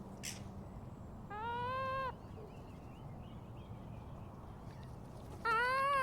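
A gull calls twice, two drawn-out mewing cries each under a second long and a few seconds apart, with a short click just after the start.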